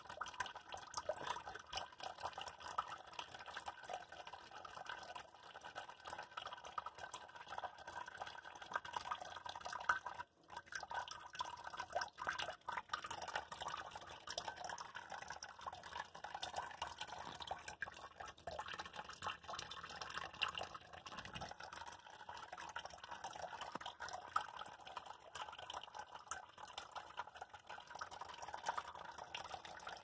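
A thin stream of tap water running from a kitchen faucet into a stainless steel sink, splashing and pattering steadily. The sound drops away for a moment about ten seconds in.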